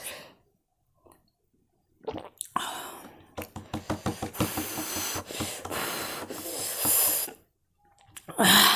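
A person slurping and eating spicy noodles with hissing breaths through the mouth, starting about two seconds in and running for about five seconds as a hissy stream of quick mouth sounds. A louder gasp comes near the end.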